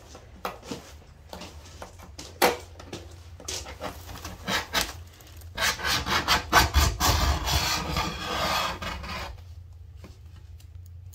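Razor blade scraper scraping dried paint off window glass: separate short strokes at first, then a long run of rapid back-and-forth strokes over stubborn paint that stops about two seconds before the end.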